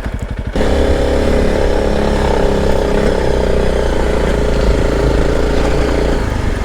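Honda CRF motorcycle engine: a slow, even pulsing run, then about half a second in the throttle opens and it runs loud and steady under load, dropping back to a slower pulsing run near the end.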